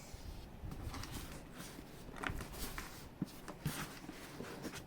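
Faint handling noise of a drone's retail box being held and turned over: light rustling with a few small taps and ticks.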